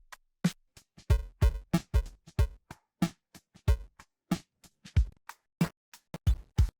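Electronic drum-machine beat of short, sharply cut kick, snare and hi-hat hits with silent gaps between them, played through a bitcrusher plugin being demonstrated.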